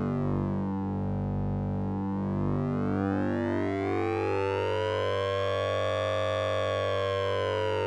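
Synthesizer effect built on oscillator sync and ring modulation: a steady low drone under a repeating pattern of stepped notes, with a bright sweep of overtones that dips early, rises to a peak about six seconds in, then begins to fall.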